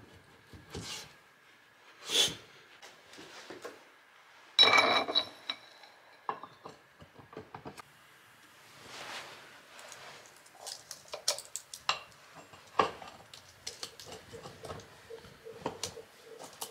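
Steel parts of a hydraulic ram being handled and fitted back together: scattered clinks, scrapes and knocks of metal on metal, with one louder ringing clank about five seconds in.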